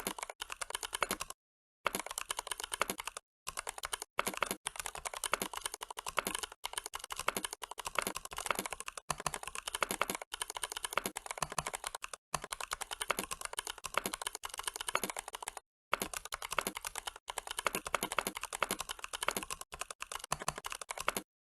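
Fast typing on a computer keyboard, about 90 words a minute: rapid runs of keystroke clicks broken by short pauses, stopping shortly before the end.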